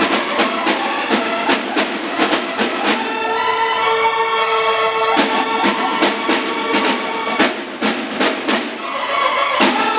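A Mexican banda de guerra of snare drums and bugles playing a march: bugles sound held notes over steady snare drum beats. About three seconds in the drums go into a roll under a long held bugle chord, and about five seconds in the beat picks up again.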